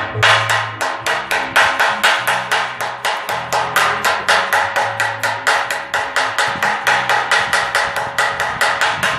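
Chipping hammer striking a freshly laid 6013 stick-weld bead on a steel plate, knocking off the slag: a quick, steady run of metallic taps, about five a second, each with a ringing note from the steel.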